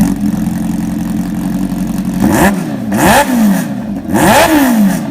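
Kawasaki Ninja H2R's supercharged inline-four idling, then revved three times in quick blips, each rising sharply in pitch and falling back to idle.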